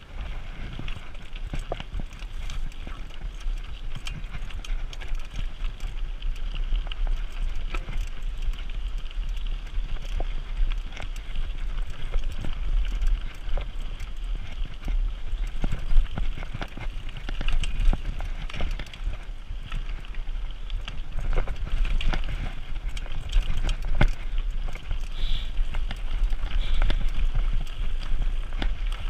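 Mountain bike riding over a rocky gravel singletrack: tyres crunching over stones, with frequent sharp rattles and knocks from the bike over the bumps. A steady low wind rumble on the camera's microphone runs underneath.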